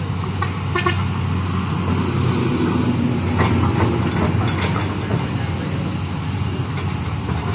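LiuGong crawler excavator's diesel engine running steadily under hydraulic load as the boom and bucket swing, with a few brief squeaks over it about a second in and again around three to five seconds in.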